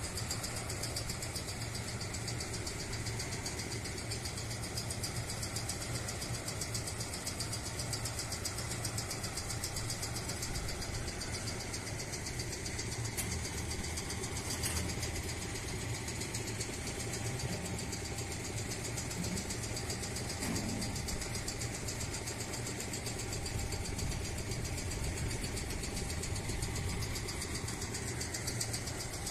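Oil-transfer pump's motor running steadily, with a fast, even pulse, as transformer oil is drawn from drums through a hose into the tank.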